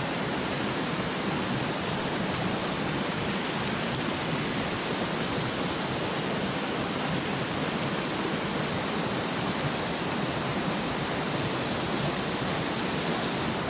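Small rocky mountain brook rushing over small cascades into a pool, a steady, unbroken rush of water.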